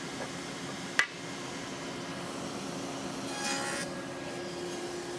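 Hardwood board handled on a table saw: a single sharp knock of wood on the saw table about a second in, then a brief rubbing hiss as the board slides across the table and sled, over a steady low hum.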